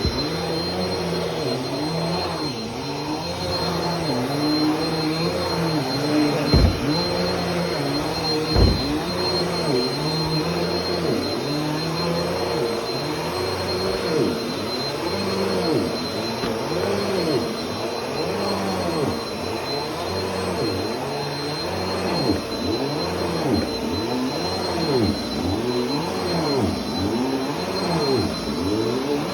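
Bissell PowerForce Compact Turbo upright vacuum cleaner running on carpet with a steady high whine, its sound rising and falling in a regular rhythm about once a second. Two sharp knocks come a couple of seconds apart early on.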